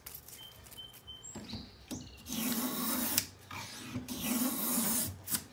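Lie-Nielsen No. 62 low angle jack plane pushed twice along the edge of a board, each stroke about a second long, shearing off a thin shaving. The strokes start about two seconds in, after a little handling of the plane.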